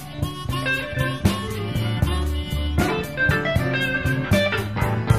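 Chicago blues band playing an instrumental fill between sung lines: electric guitars and electric piano over bass notes and a steady beat.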